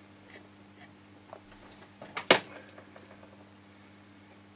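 Faint steady low hum with a few light taps and one sharp click about two seconds in.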